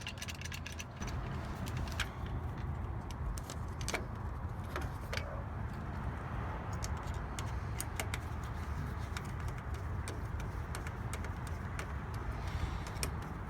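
Scattered light metallic clicks and clinks from the parts of a mortise lock being handled, over a steady low rumble.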